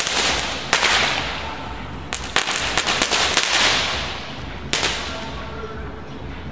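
Enigma 'Dragon Eggs' firework going off: sharp cracks, one loud crack about a second in, a quick cluster around two seconds and a single crack near five seconds. Each crack is followed by a hissing spray that fades away toward the end.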